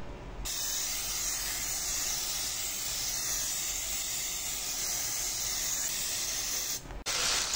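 Aerosol butter spray hissing steadily into a hot pan. The spray stops briefly near the end, then starts again.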